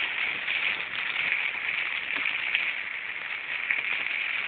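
Rain falling steadily: a continuous hiss with scattered ticks of single drops.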